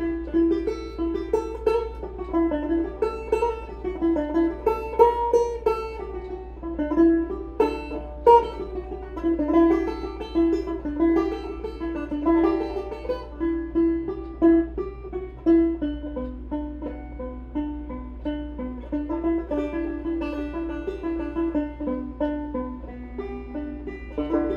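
Instrumental passage of a song: a plucked string instrument picking a steady run of quick, separate notes, with a constant low hum underneath.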